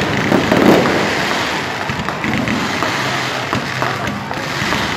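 Fireworks crackling and popping in a steady dense stream, with a crowd's voices mixed in during the first second.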